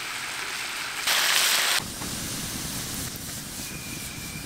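Sliced onions and green peppers sizzling in a frying pan over a campfire: a steady hiss that swells loudly for under a second about a second in. After that it gives way to the crackle of the burning wood fire.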